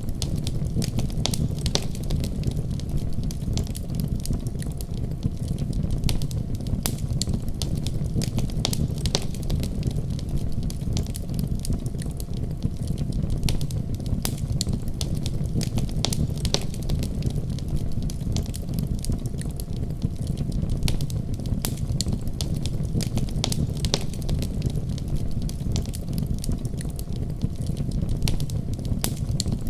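Wood fire in a fireplace crackling steadily, with frequent sharp pops and snaps over a low, even rumble of the burning.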